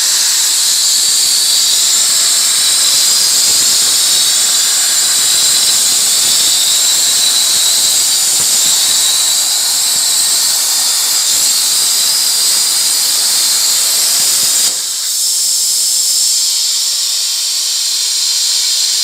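Plasma cutting torch on a CNC table cutting sheet metal: a loud, steady, high hiss of the arc and its air jet. About 15 s in, the lower part of the sound drops away while the hiss continues.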